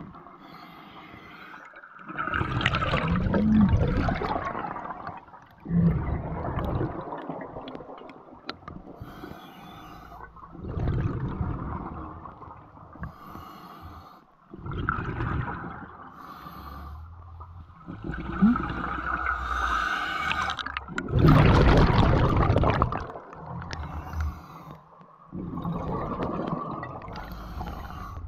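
Scuba diver breathing underwater through a regulator: about seven gurgling bursts of exhaled bubbles, one every few seconds, with quieter stretches between them.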